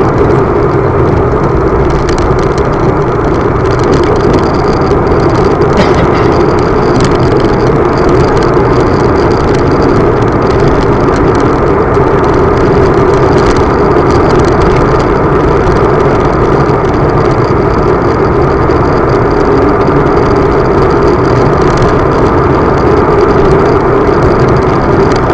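Steady engine and wind noise of a vehicle travelling along a road, loud and unchanging.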